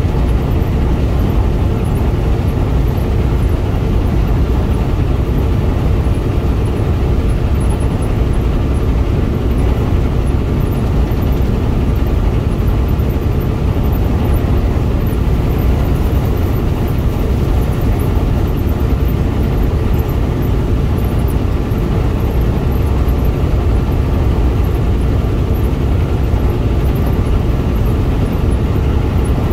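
Steady low rumble of road and engine noise inside a moving car's cabin, even throughout with no separate bangs or claps.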